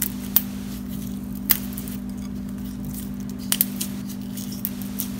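Dry bay leaves snapping and crackling as they are broken by hand into a bowl of salt and ground pepper: a handful of short, crisp snaps, several close together past the middle, over a steady low hum.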